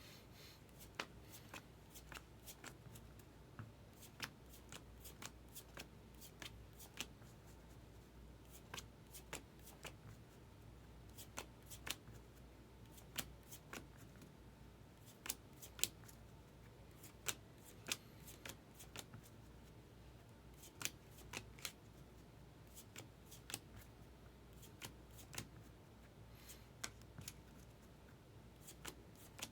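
Baseball trading cards being handled and flipped through a stack, each card giving a short sharp flick at an uneven pace of one to three a second.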